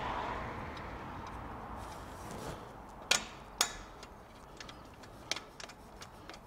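Two sharp metallic clicks about three seconds in, then lighter ticks and clinks, as a steel exhaust pipe section and its bolts are worked into place by hand under a car, over a faint background rush that fades early on.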